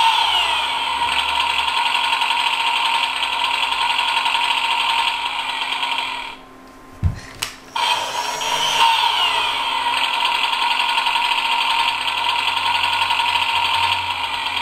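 Husqvarna 125B toy leaf blower running with its battery-powered engine sound, steady and high-pitched. Each run opens with a falling whine. It cuts off about six seconds in, there is a single thump, and it starts up again about a second and a half later.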